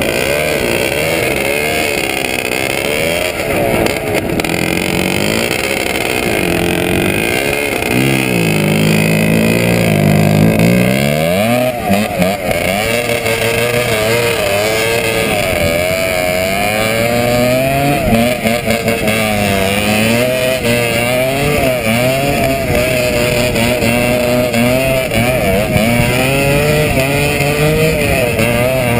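ČZ 250 cc two-stroke motocross motorcycle engine running hard while towing a skier on snow. The revs keep rising and falling as the throttle is worked through the turns.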